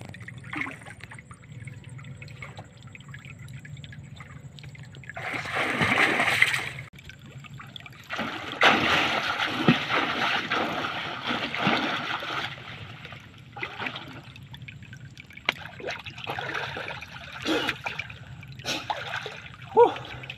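Water splashing and churning as a man catches fish by hand underwater, in two long bouts, about five seconds in and from about eight to twelve seconds, followed by smaller splashes and drips as he comes up out of the water.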